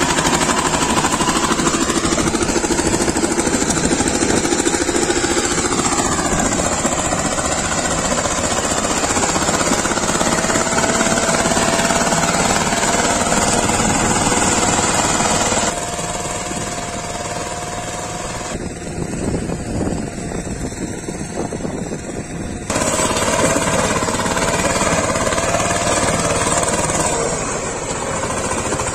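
VST Shakti 130 DI power tiller's single-cylinder diesel engine running steadily under load while its rotary tiller blades churn through dry, cloddy soil. The level drops for several seconds just past the middle, then comes back up.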